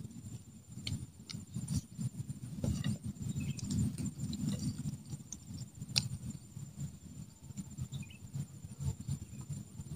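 Rustling handling noise close to a clip-on microphone as hands work with a small fish and hook, with a few sharp clicks, the strongest about six seconds in. A steady, high-pitched insect drone runs underneath.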